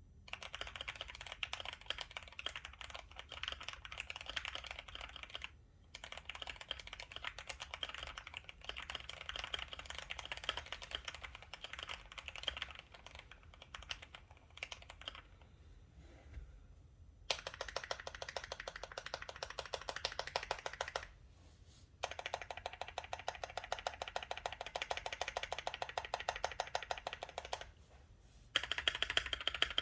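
Typing on a Keychron Q5 mechanical keyboard fitted with Gateron CJ linear switches, stock stabilizers and a three-layer tape mod: quick keystroke clacks in bursts with brief pauses between them. The later runs are faster and more even.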